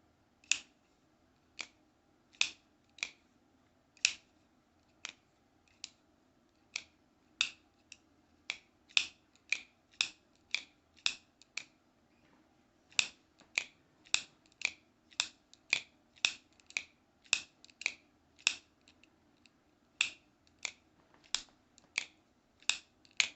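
Benchmade Griptilian folding knife with an AXIS lock being flicked open and shut over and over: a run of sharp clicks, one or two a second, with a brief pause about halfway through.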